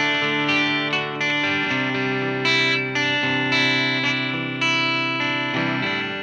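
Squier Affinity Telecaster electric guitar played through a Marshall MG30 amp with effects, strumming ringing chords. A new chord is struck every second or so.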